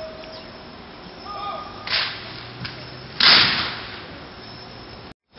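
A short shouted call, then two sharp cracks about a second apart; the second is much louder and fades away over most of a second.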